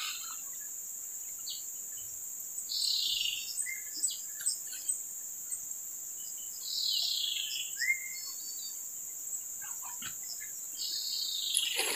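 Steady high-pitched drone of insects, with a bird giving three falling calls a few seconds apart and a few short chirps between them.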